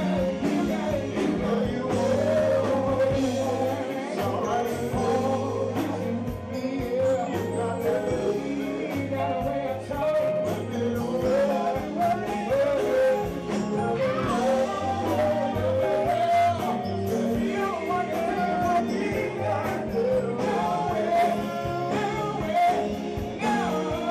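Live band music: a man sings into a microphone over keyboard and drums.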